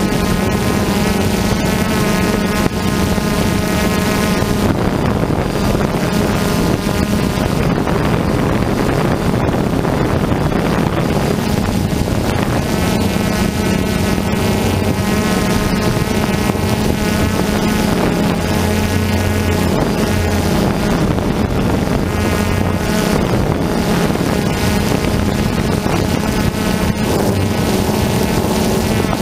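Multirotor drone's motors and propellers buzzing steadily, heard through its own onboard camera, with pitched whine that shifts and fades in and out as the motors change speed.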